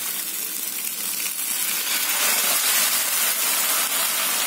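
Hot ghee sizzling in a frying pan as ground taro-and-coconut paste and water rinsed from the mixer jar go into it. The sizzle grows louder over the first couple of seconds, then holds steady.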